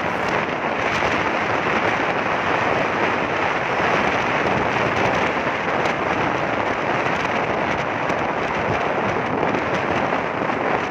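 Wind rushing over the microphone of a moving motorcycle, a steady noise with no clear engine note.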